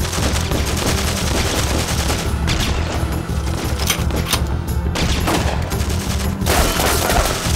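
Gunfire in a shootout: a rapid, unbroken run of shots from automatic weapons, over a steady, pulsing low music score.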